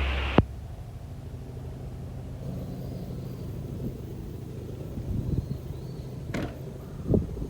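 A steady low outdoor rumble, of the kind that wind or distant surf makes, after a louder sound cuts off sharply just after the start. A single sharp tick comes about six and a half seconds in.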